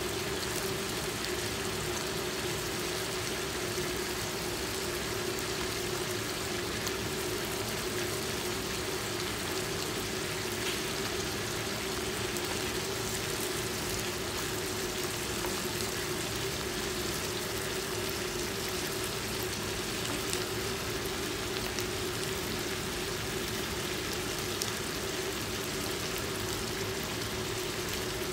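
Chopped meat and onions sizzling steadily in a frying pan, with a steady low hum underneath.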